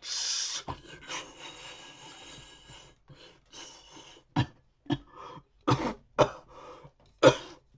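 A loud hissing fizz like a soda can spraying over, made with the mouth, fading away over about three seconds. It is followed by about five short coughs.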